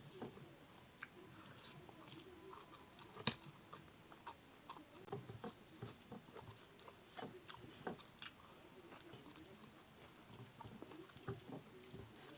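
Close-up eating sounds: soft, wet chewing and lip smacking of someone eating rice in its starch water with boiled potato, with scattered small clicks and one sharp click about three seconds in.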